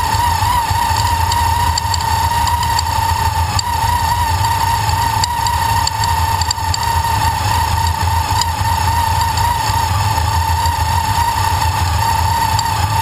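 Supercharged engine of a 2010 Camaro with a Magnuson TVS2300 blower idling steadily, with a constant whine and faint, irregular ticking. The owner takes the knocking for a bearing going out.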